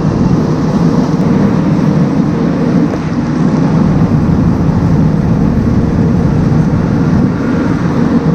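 Barn feeding system running: the silo unloader and belt feeder carry silage and grain along the cow bunks. It is a loud, even mechanical drone with a faint steady hum.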